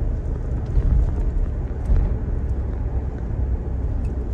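Steady low rumble of a car on the move, road and engine noise heard from inside the cab.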